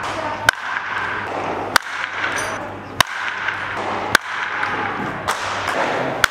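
Baseball bat hitting balls in a steady drill: six sharp cracks about one every second and a quarter, over a murmur of background voices.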